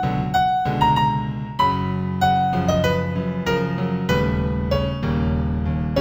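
New-age instrumental music in F major: a piano-like keyboard playing a slow melody of single struck notes over low held chords.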